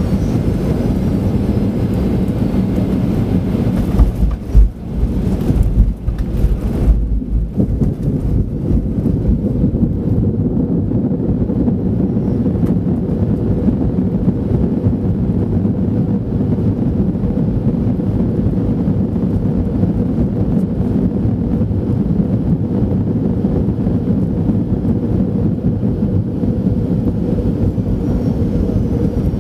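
Cabin noise of a Boeing 737-800 rolling along the runway after landing: a steady low rumble. About four to seven seconds in there is a burst of heavy low thumps and jolts, after which the rumble carries on with less hiss.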